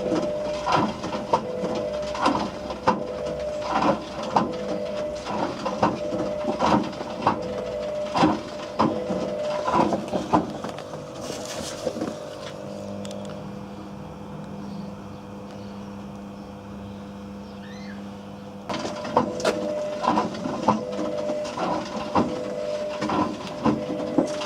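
Whirlpool WWDC 7210/1 washing machine drum turning with hard objects knocking and clattering irregularly inside it over the motor's hum. About halfway through, the knocking stops for several seconds, leaving a steady hum, then starts again.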